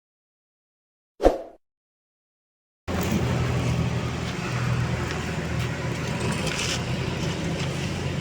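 A single short thump about a second in. After a silent gap, a steady background of road-traffic noise with a low motor hum starts at about three seconds.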